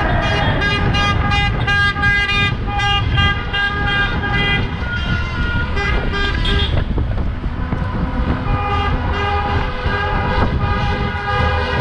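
Car horns honking in celebration: quick repeated beeps, about three a second, for the first half, then longer held blasts. A steady low rumble of wind and traffic runs underneath.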